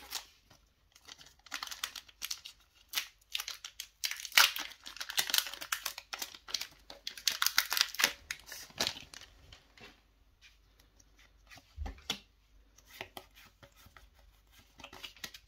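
Foil wrapper of a Pokémon trading card booster pack being torn open and crinkled, with a dense crackle that is loudest in the middle. After that come softer, scattered rustles and clicks as the cards are slid apart in the hands.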